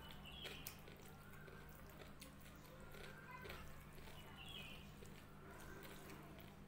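Faint sounds of eating by hand: rice and dal squished and mixed with the fingers on a plate, with soft scattered clicks and chewing.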